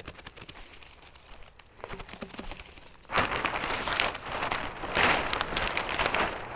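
Sheet of 6 mil polyethylene plastic crinkling and rustling as it is unfolded and spread out by hand: a few light crackles at first, then from about three seconds in a loud, continuous crinkling in surges.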